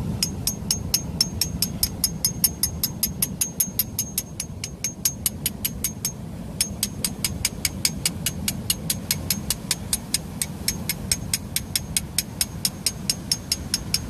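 Steel hammer striking a cold chisel held against the rock, chipping the rock away from the base of a Natal rock oyster to free it. The blows are quick and even, about four a second, and ring metallically in the first half, with a brief break about six seconds in.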